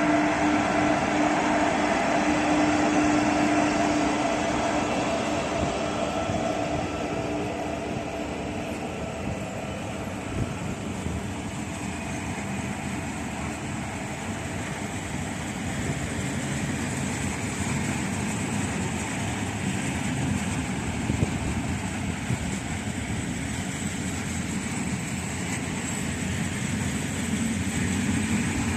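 Railway train running by, a continuous rolling noise with several steady whining tones that are strongest at first and fade away over the first eight seconds or so; a thin high whine comes in about halfway through.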